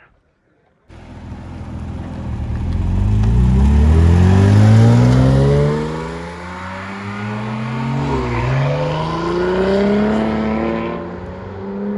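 A car engine accelerating hard, its note climbing in pitch as it pulls. It eases off about six seconds in, then climbs again before cutting off abruptly.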